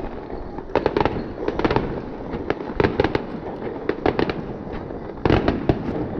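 Fireworks display: firework shells bursting in quick volleys of sharp bangs and crackles, a new cluster every second or so.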